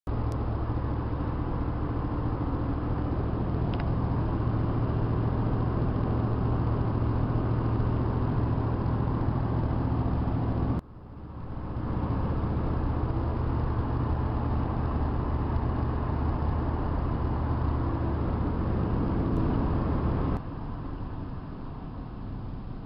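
Steady engine and road drone inside a moving vehicle's cab, mostly a low hum. It breaks off abruptly about halfway and builds back up, then drops to a quieter level near the end.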